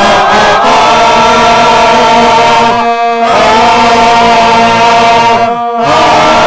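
Layered recordings of one person's voice singing long held chords in imitation of a marching band's brass, breaking off briefly about three seconds in and again near the end.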